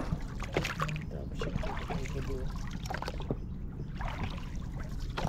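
A boat paddle working in shallow river water: splashing, trickling and dripping of water around the blade, with small spattering ticks throughout.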